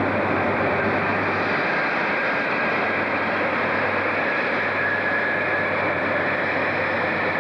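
InterCity 125 HST diesel power car running slowly along a station platform: a steady rumble and rush of engine and train, with a faint high whine coming in around the middle.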